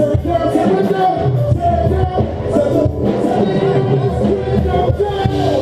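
Live worship band playing with singing over a steady drum beat and bass.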